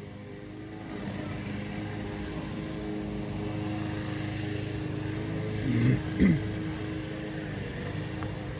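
Steady motor drone made of several fixed tones, getting louder about a second in. About six seconds in come two short, loud sounds that waver up and down in pitch.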